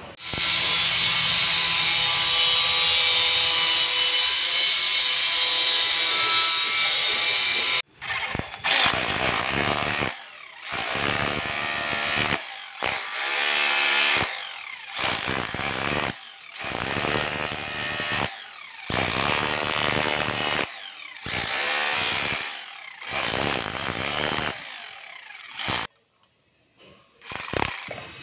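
An electric rotary hammer with a chisel bit chipping into a concrete and plaster wall. It runs steadily for about eight seconds, then in a series of short bursts of a second or two each with brief pauses between them.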